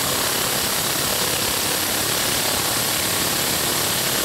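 Cordless impact wrench hammering steadily as it tightens the lower strut bolt through a 21 mm socket.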